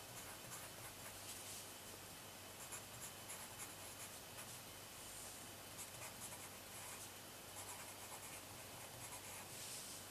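Coloured pencil writing capital letters on sketchbook paper: faint scratching in quick clusters of short strokes, one cluster per letter or word, with brief pauses between.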